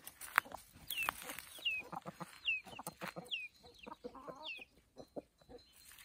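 Free-range chickens clucking softly as they forage, with a string of short, high, falling chirps repeating about once a second.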